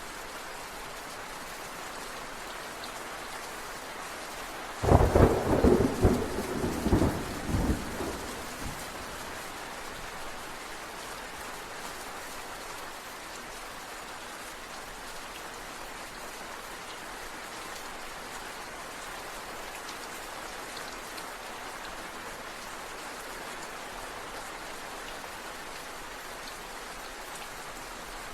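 Steady rain falling, with a sudden loud thunderclap about five seconds in that crackles in several quick strokes for about three seconds, then fades back into the rain.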